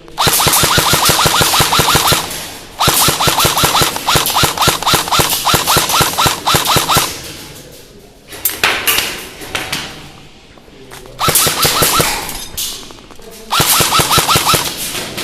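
Airsoft electric gun firing on full auto in five bursts of rapid, even clicks. The longest burst lasts about four seconds, and the shorter ones come near the middle and near the end.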